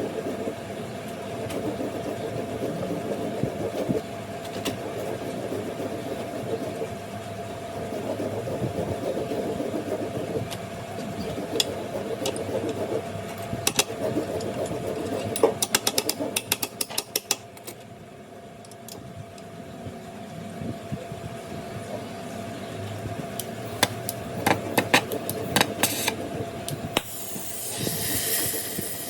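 A steady machine hum with scattered sharp clicks, then a burst of hiss near the end.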